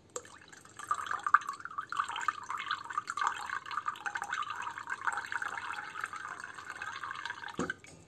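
Boiled water being poured into a ceramic mug that already holds liquid, a steady splashing pour that stops abruptly about seven and a half seconds in.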